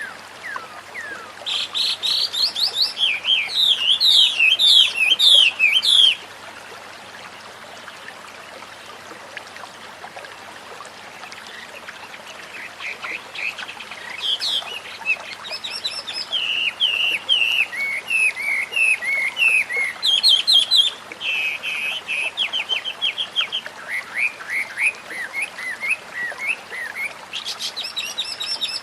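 White-rumped shama (murai batu) singing long runs of quick, sharply falling notes, breaking off for several seconds near the middle before starting up again, over a steady hiss of flowing water.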